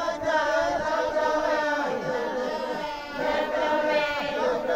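A congregation singing together, many voices in unison.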